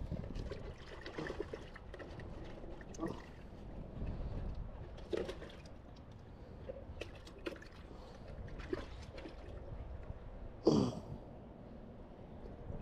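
Water trickling and splashing lightly in a bucket as a freshly caught fish is handled in it, with scattered small knocks and clicks. Near the end comes a short, falling grunt-like sound.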